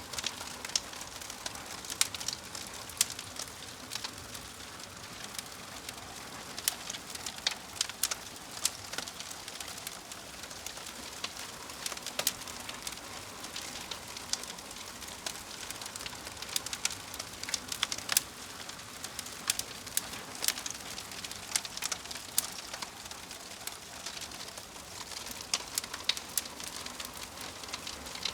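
Wood fire burning steadily: a soft continuous hiss broken by frequent, irregular sharp crackles and pops.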